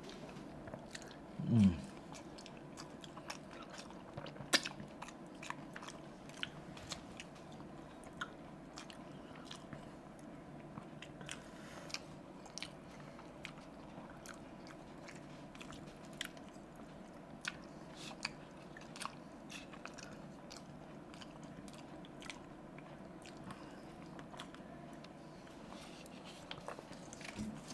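Close-up chewing and crunching of dahi puri, crisp fried puri shells filled with potato, chutneys, yogurt and sev, with scattered crisp bites throughout. A short hummed sound from the eater about a second and a half in.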